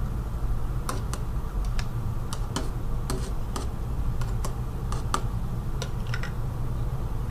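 Metal spoon clicking and scraping against a plastic blender jar and tub while scooping soft cheese in. The clicks are light, sharp and irregular, over a steady low hum.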